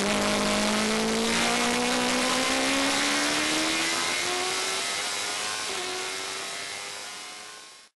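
Fury kit racing car's engine heard from the open cockpit, pulling hard down a straight, rising steadily in pitch, with one quick upshift about six seconds in, over wind rush. The sound then fades out and cuts off near the end.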